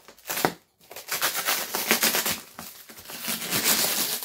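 Black plastic packaging wrap being crinkled and pulled at by hand as a parcel is torn open, a dense crackling rustle with a short burst about half a second in and near-continuous crinkling from about a second in.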